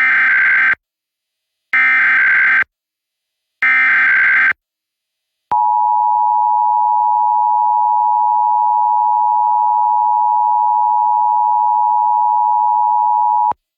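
Emergency Alert System tones opening a statewide Required Monthly Test: three bursts of SAME digital header data, each just under a second and a second apart, then the two-tone attention signal held steady for about eight seconds before cutting off.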